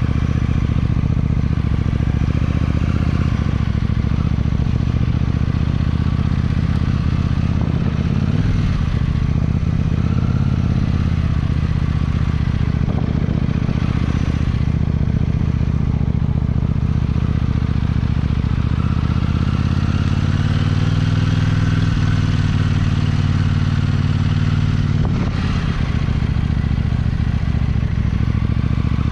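KTM 790 Duke's parallel-twin engine running at low revs while the bike rolls slowly in traffic, with the revs rising a little about two-thirds of the way through.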